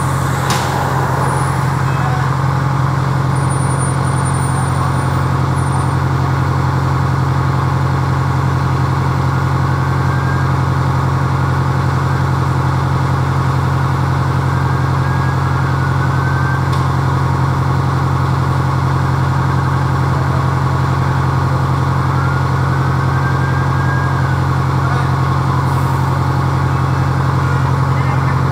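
A heavy vehicle's engine idling, a steady low drone that holds unchanged. A few faint high tones rise and fall over it, one every several seconds.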